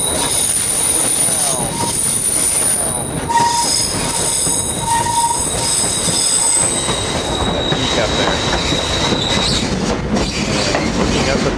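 Passenger train's steel wheels squealing on a curve: high, steady whistling squeals over the continuous rumble of the cars running on the rails. The squeal dies away about three-quarters of the way through, leaving the rumble.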